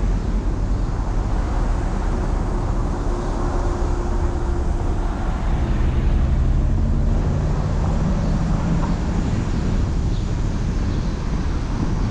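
Steady low rumble of wind on the microphone with street traffic noise, from a car stopped at a red light.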